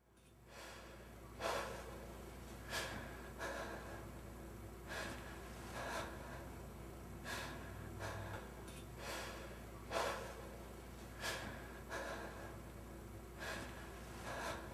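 A person breathing heavily and loudly close to the microphone, in and out about every two seconds, over a low steady hum.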